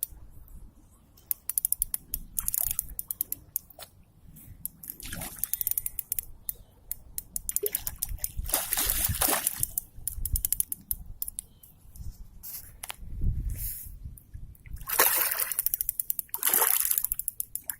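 Water splashing in several irregular surges a few seconds apart, with many sharp clicks and snaps in between.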